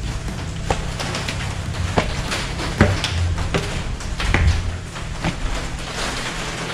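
Footsteps and scuffs on concrete steps and a tiled floor, an uneven series of sharp knocks about a second apart, over a low steady drone.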